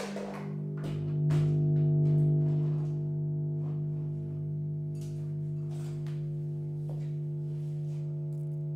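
Homemade electric cigar box guitar left ringing through its amplifier in a steady held drone that drops in pitch once just after the start, with a few knocks and rattles as the guitar is handled and set down against the amp.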